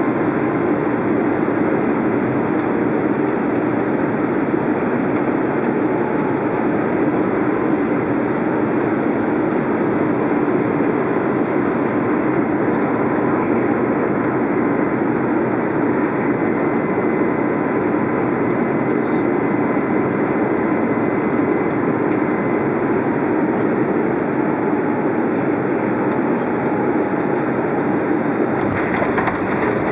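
Steady cabin roar of a Boeing 757 during its landing, engine and airflow noise heard from inside the cabin, with faint steady tones riding on it. The noise turns harsher about a second before the end.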